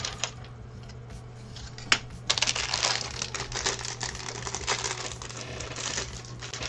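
Loose plastic building bricks clicking and clattering as they are handled and sorted, with one sharp click about two seconds in and then a dense run of rattling.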